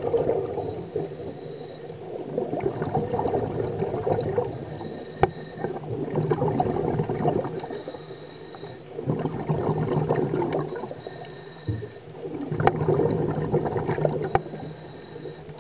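Scuba diver breathing through a regulator underwater. A thin hiss on each inhale alternates with a bubbling rush of exhaled air, repeating about every three and a half seconds, about four breaths in all.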